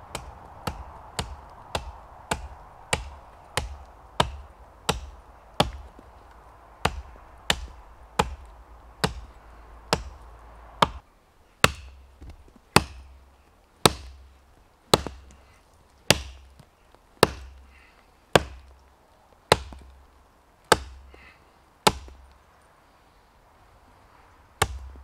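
Hultafors hunting axe chopping into the trunk of a small standing tree in sharp, regular strikes. The strikes come about two a second, slow to about one a second after about eleven seconds, then pause for a couple of seconds before one last strike near the end.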